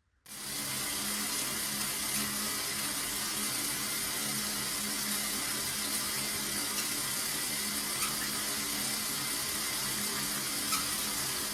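Shower water spraying steadily from a shower head, cutting in abruptly right at the start.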